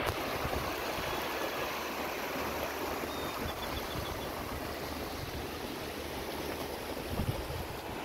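Shallow river running over a rocky bed, a steady rushing of water. Wind rumbles on the microphone now and then, most strongly near the end.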